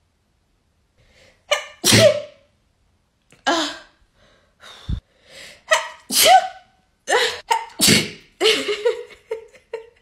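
A person sneezing again and again, about seven sneezes in quick succession starting about a second and a half in, set off by a nasal swab for a Covid test.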